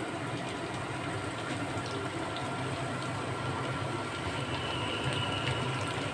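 Spinach-and-paneer fritters sizzling steadily as they deep-fry in hot oil in a kadai, over a low steady rumble.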